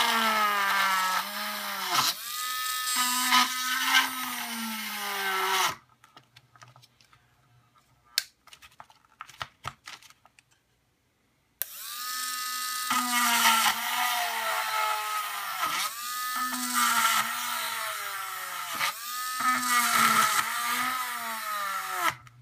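Small electric hand drill running and boring a row of holes in a hard plastic model car body shell; its whine sags in pitch again and again as the bit bites into the plastic. It stops about six seconds in, leaving a few faint clicks, and starts again about twelve seconds in, running until just before the end.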